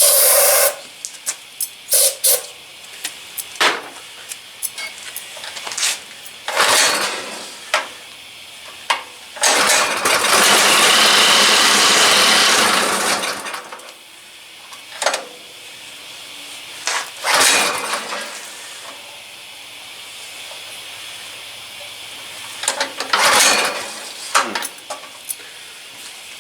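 Aerosol can of starting fluid spraying into a small engine's carburetor: short hissing squirts, and one long spray of about four seconds near the middle, with clicks and knocks of handling between them.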